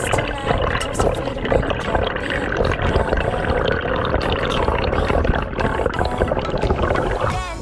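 Underwater camera audio: water rushing and gurgling past the housing, with scattered clicks and bubbling, as a freediver swims up toward the surface.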